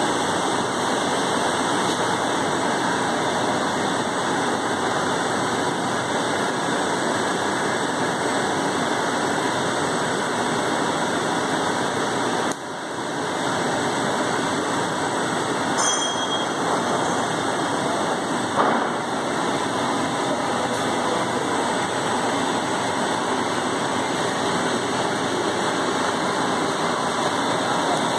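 Synthetic string (PP twine) extrusion line running: a steady, even machine noise from the extruder drive and gearbox, with a brief dip about halfway through and a couple of small clicks.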